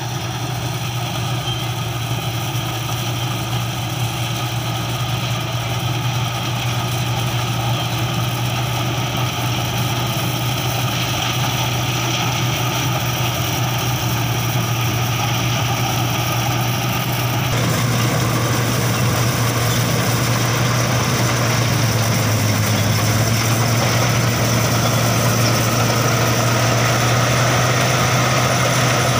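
Crown MCH-2000 PJ Star combine harvester running steadily as it harvests corn, with its engine hum under the noise of the cutting and threshing machinery. The sound shifts abruptly to closer and a little louder about two-thirds of the way through.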